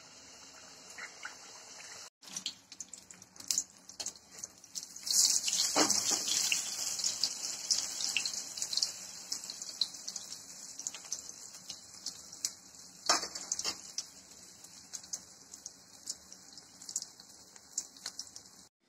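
Sweet appam batter sizzling and crackling as it deep-fries in hot coconut oil in an aluminium kadai. The sizzle swells sharply about five seconds in, and two sharp knocks come from around the pan.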